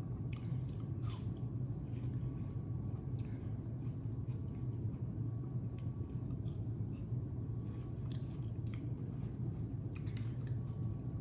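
A person chewing a juicy piece of raw watermelon, with a few soft clicks scattered through, over a steady low hum.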